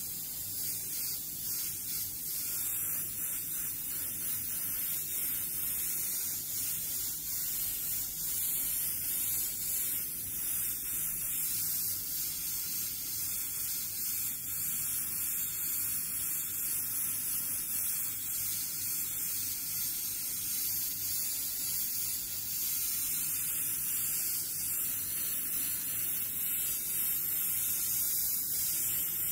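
Gravity-feed airbrush spraying paint with the air regulated to about 15 psi: a steady high hiss that swells and eases slightly as the trigger is worked.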